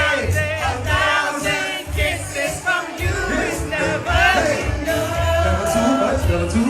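Music with singing over a heavy, pulsing bass beat.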